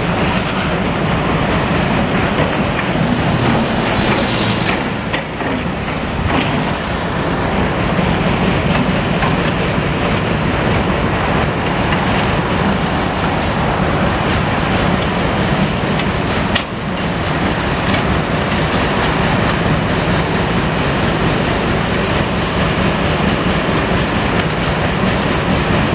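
Tracked demolition excavators' diesel engines running steadily under load, a continuous heavy-machinery rumble from the site.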